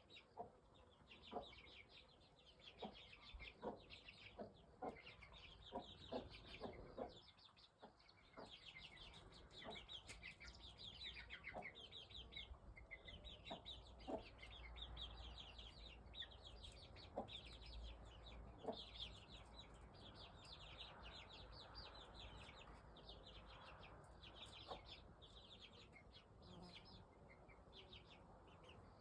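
Faint clucking of chickens, short calls a second or two apart, over a steady run of rapid high-pitched chirping trills.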